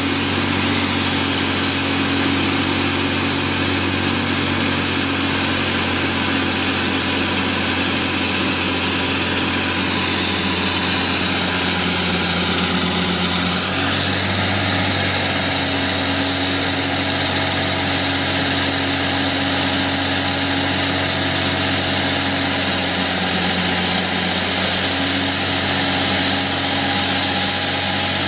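Diesel engine of a walk-behind concrete saw running steadily, with a high whine that dips and rises again around ten to fourteen seconds in.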